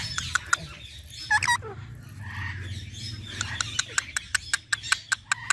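Pet parrot calling: scattered short chirps, a brief pitched squawk about a second and a half in, then a fast run of sharp chirps, several a second, in the second half.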